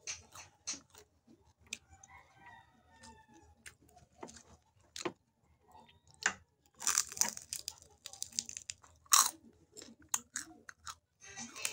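Close-up chewing and crunching of crispy chicharon (fried pork rind) with rice, eaten by hand: scattered crisp crunches and mouth clicks, with the loudest crunches about seven and nine seconds in.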